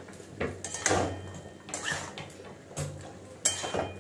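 Metal spatula scraping and knocking against a metal kadai as a thick mix of diced vegetables, dal and soya chunks is stirred and turned over. The strokes come irregularly, with a sharp clink about three and a half seconds in.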